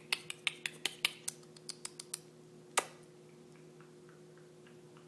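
A mini hockey stick tapping and clicking against a hard surface during play with a cat: about a dozen quick sharp taps over the first two seconds, then one louder knock near three seconds.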